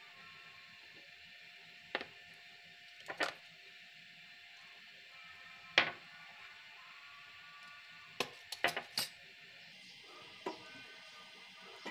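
Scattered sharp clicks and knocks of kitchen utensils against a saucepan while spices are added to milk and stirred in. The loudest knock comes a little before six seconds in, and a quick run of four or five follows around eight to nine seconds.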